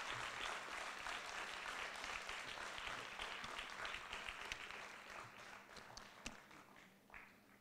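Audience applauding, the clapping thinning out and dying away over the last two seconds or so.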